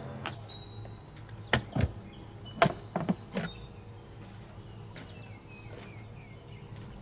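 Engine cowling of a Yamaha 50 hp four-stroke outboard being unlatched and lifted off, giving a few sharp clicks and knocks about one and a half to three and a half seconds in. Small birds chirp briefly near the end.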